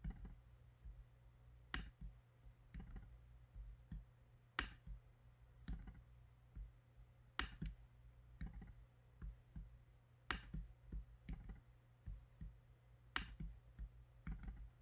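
Computer mouse clicking: a sharp click about every three seconds, with fainter clicks between, over a low steady hum.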